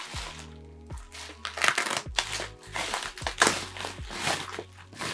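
Packaging being cut open and its wrapping crinkled: a run of irregular noisy strokes over quiet background music.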